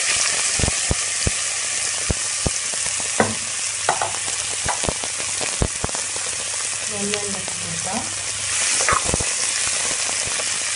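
Sliced onions sizzling as they fry in hot olive oil in an aluminium pressure cooker: a steady hiss with scattered sharp pops throughout.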